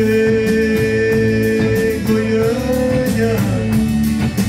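Live band playing a song on guitars, bass and drums, with a long held note for about three seconds that wavers near its end, then the band carrying on.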